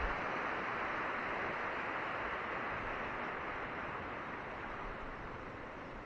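Surf washing onto a rocky shore: a steady hiss of small waves that slowly dies away.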